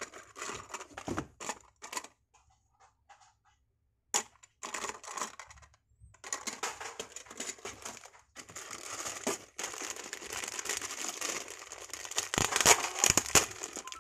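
Clear plastic tray of Lego windscreen pieces shifting and clicking, then a short quiet gap broken by a sharp click about four seconds in. From about six seconds in, a plastic bag of Lego parts crinkles steadily in the hands, loudest near the end.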